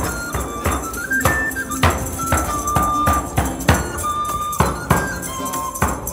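Live medieval-style folk music. A frame drum with jingles is struck in a steady beat of about ten strokes. A pipe plays a stepping melody over plucked lute strings.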